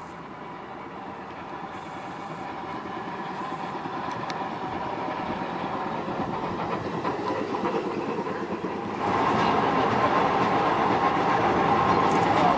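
Electric streetcar running on its rails, drawing steadily closer and louder. About nine seconds in, the sound jumps to a louder, closer ride with a steady whine running through it.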